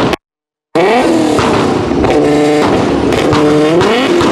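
Infiniti G-series sedan's V6 engine being revved hard again and again, its pitch climbing and dropping several times, with the exhaust popping and crackling as it spits flames. The sound cuts out for about half a second near the start.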